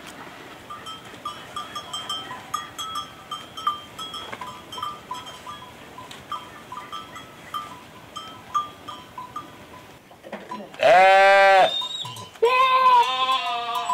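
A goat bleating loudly twice near the end, two long wavering calls one close after the other, over faint short high chirps repeating through the earlier part.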